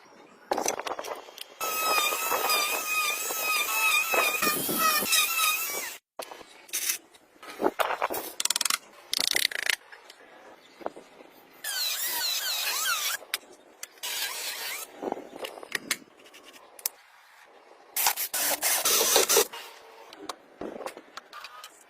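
Handwork on toy-building materials: several bursts of scraping and rubbing, separated by short pauses. The longest, about two seconds in, carries a wavering squeal.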